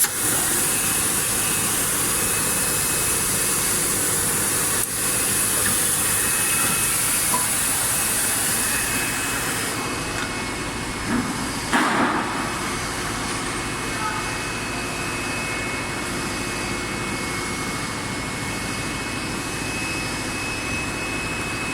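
Injection moulding machine running during a mould trial: a steady mechanical hum with a high hiss that stops about ten seconds in, and a short clunk about twelve seconds in.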